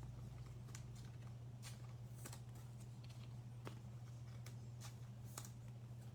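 Faint scattered clicks and rustles of trading cards being handled and set down, over a steady low hum.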